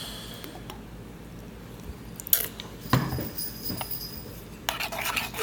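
Light clinks, taps and rustling of kitchen utensils and containers being handled while mixing a runny glue slime, with a sharper knock about three seconds in and busier clinking near the end.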